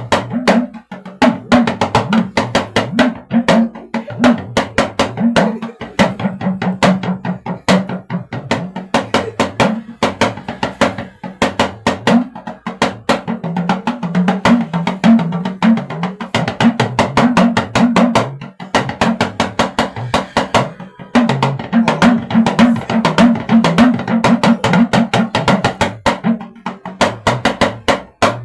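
Talking drum played in a fast, continuous stream of strokes, its pitch rising and falling from stroke to stroke, with a few brief pauses; the drum is being played through to check its pitch and resonance.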